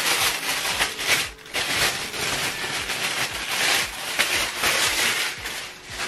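Paper packaging rustling and crinkling as it is handled close by, a dense run of crackles with a short lull about one and a half seconds in.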